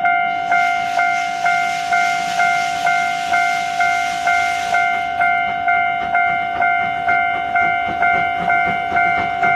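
A railway level-crossing warning bell ringing steadily, about two strikes a second at one pitch, while a steam locomotive passes. The locomotive's hiss of steam is heard through roughly the first half.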